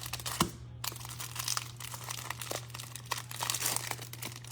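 Crinkling plastic wrapping and trading cards being handled and shuffled, a run of small irregular rustles and clicks over a steady low hum.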